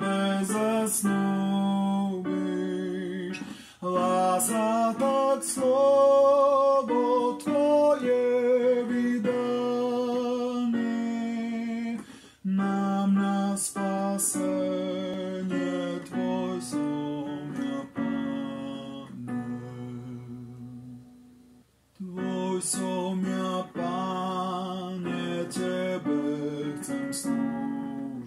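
A hymn sung in Slovak by a solo voice, with acoustic guitar strummed beneath it. About two thirds of the way through, the music dies away almost to silence for a moment, then the singing and guitar start again with the next verse.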